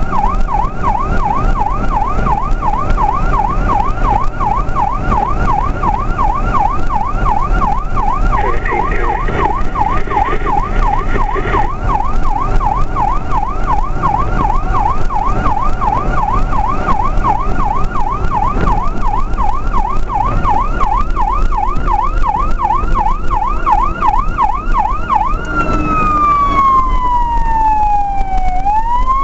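Fire apparatus siren in fast yelp, about three rising-and-falling sweeps a second. Near the end it switches to a slow wail that falls for a few seconds and then starts rising again. A steady low rumble runs underneath.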